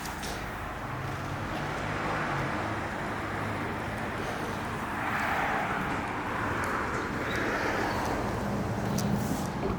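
Jaguar XJ's engine running, a steady low hum whose pitch shifts up a couple of times.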